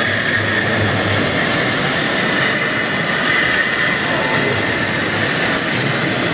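Steady rail-vehicle running noise with a high, squeal-like tone over it, sounding with the O-scale model tram as it moves along the layout.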